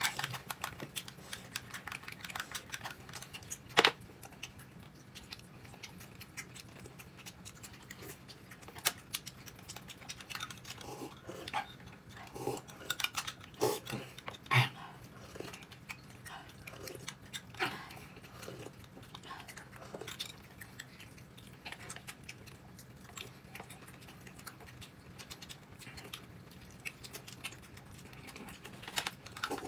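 People eating at a table: scattered light clicks and taps of tableware, a few louder knocks, and some chewing.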